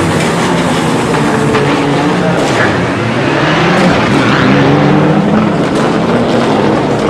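Loud rally car engines revving hard, the pitch rising and falling as the cars accelerate and pass.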